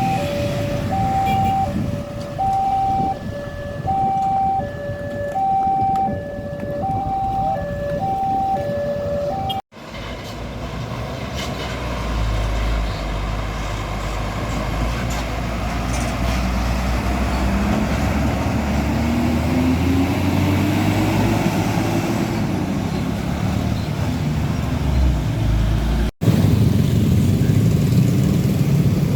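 A two-tone siren-like warning sound, high and low notes alternating evenly for about ten seconds, over truck traffic. After a cut, heavy diesel truck engines rumble on the road, one rising in pitch as it accelerates.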